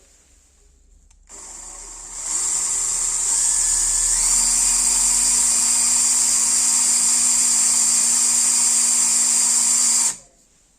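Electric drill motor running with a steady high whine. It starts just over a second in, gets louder a second later, steps up in pitch around four seconds in, and stops abruptly near the end.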